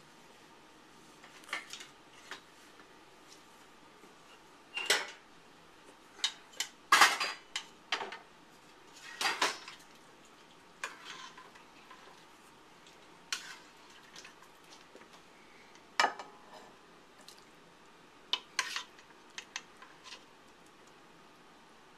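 Metal utensils clinking and scraping against a serving bowl and a stainless steel pot as food is dished up. The clinks are scattered and irregular, with a few short scrapes; the sharpest come about a third of the way in and again past the middle.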